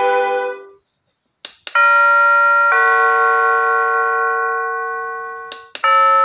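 Hampton Bay wireless doorbell chime cycling through its built-in tones. A melodic tune dies away, and then, after a couple of clicks, a two-note ding-dong sounds, high note then lower note, ringing down slowly. Another click is followed by the first notes of the next tone near the end.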